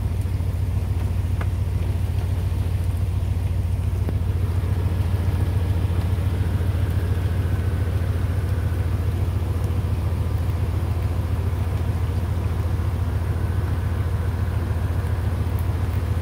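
An engine running steadily at constant speed, a low pulsing hum that does not rev or change.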